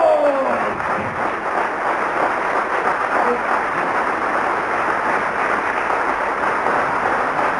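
Theatre audience applauding steadily in a dense, even clatter of clapping.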